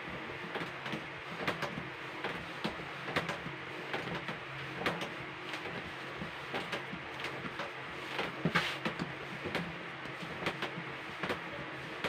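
Hands kneading a stiff lump of marshmallow-and-powdered-sugar fondant on a worktable: irregular soft thumps and slaps, a few a second, as the dough is pushed down and folded over.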